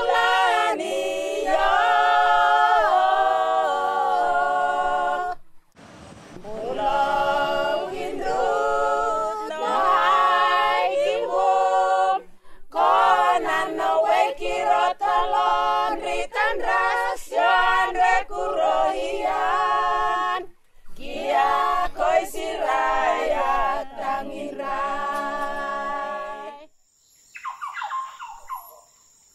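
Voices singing a cappella without instruments, in phrases of several seconds with short breaks between them. The singing ends about 27 seconds in, giving way to quieter sounds.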